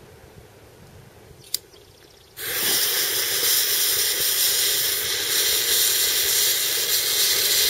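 A short click, then a lit fuse catches about two and a half seconds in and burns with a loud, steady, sputtering hiss, throwing sparks.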